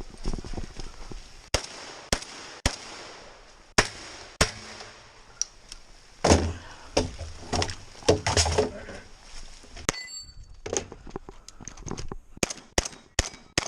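Gunfire in quick strings: separate shots a second or so apart, then a dense cluster of shots and impacts in the middle, then shots about three a second toward the end.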